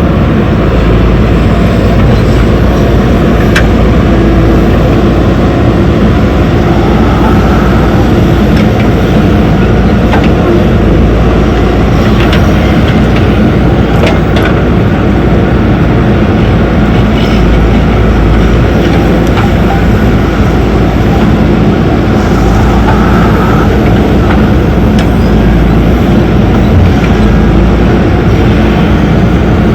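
Diesel engines of a backhoe loader and tractor running steadily under load, with a couple of short sharp clanks.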